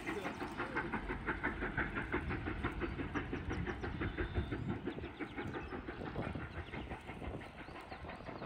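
Canadian Pacific 2816, a 4-6-4 Hudson steam locomotive and its train, running by with a quick, even rhythmic beat of several strokes a second that fades after about five seconds.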